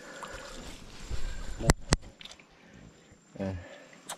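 Trap netting being handled in shallow muddy water, with low rustling, two sharp knocks in quick succession about two seconds in, and a short grunt-like voice near the end.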